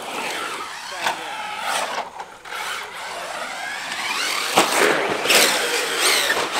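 Radio-controlled truck's motor whining up and down with the throttle as it drives over dirt, with a couple of sharp knocks in the second half.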